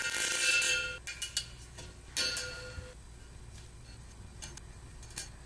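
Small knocks, scrapes and clicks against a 3-inch stainless steel exhaust pipe lying on a workbench as it is marked around a zip tie, the pipe ringing briefly after the louder ones; fainter ticks follow over a low steady hum.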